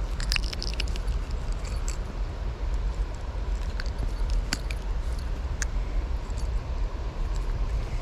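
Small sharp metallic clicks and rattles from handling fishing pliers and a hook while unhooking a small largemouth bass, scattered irregularly over a steady low rumble.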